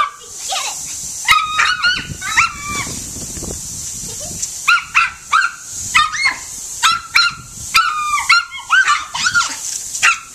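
A small dog barking and yipping excitedly in quick clusters of high yelps with short pauses, as it snaps at a jet of spraying water. The steady hiss of the water spray runs underneath.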